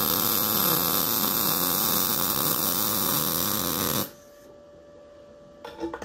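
MIG welding arc on 1/16-inch thin-wall mild steel square tubing, running steadily through a short weld run and cutting off about four seconds in. A couple of faint clicks follow near the end.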